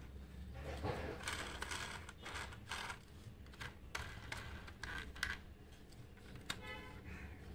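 Clicks and taps of a diecast metal model SUV being picked up and turned in the hands, its body and plastic parts knocking lightly, with a short buzzing rattle about seven seconds in.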